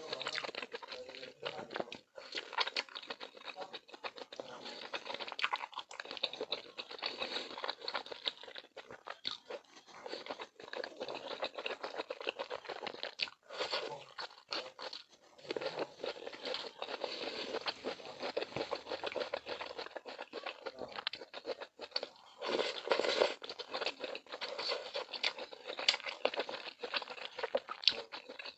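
Close-miked crunching and crackling from food, a dense run of small crackles broken by brief pauses.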